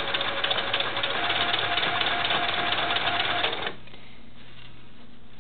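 Electric sewing machine stitching at a fast, steady rate, then stopping abruptly about three and a half seconds in, leaving a faint low hum.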